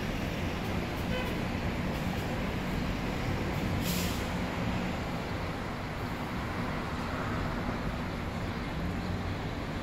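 Street traffic: a steady rumble of engines and tyres on a city avenue, with one short, sharp hiss about four seconds in.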